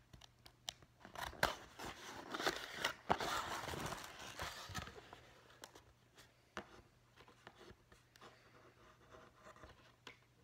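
A cardboard shipping box and its paper packing being opened by hand: rustling, scraping and tearing with sharp clicks, busiest in the first five seconds, then a few faint clicks and rustles.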